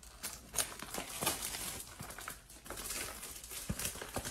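Plastic wrapping on a sealed trading-card box crinkling and rustling as it is cut and pulled off by hand, with irregular small clicks and taps from handling the cardboard box.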